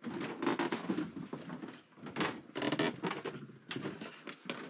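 Footsteps and rustling as people walk through the rooms, with a few sharp knocks near the end.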